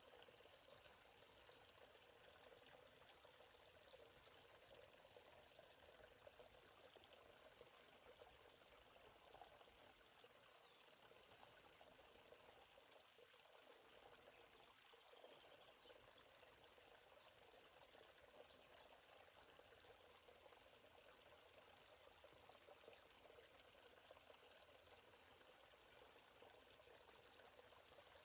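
Steady, high-pitched insect chorus over the faint murmur of a forest stream.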